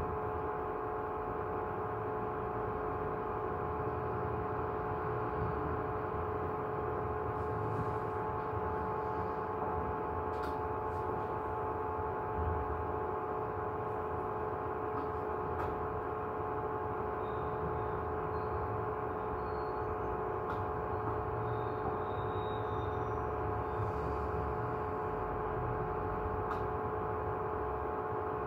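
Steady machine hum: several even tones over a low rumble, with a few faint clicks now and then.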